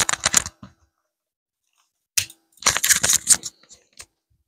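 Rapid clicking and rattling handling noises in two bursts: a short one at the start and a longer one from about two seconds in.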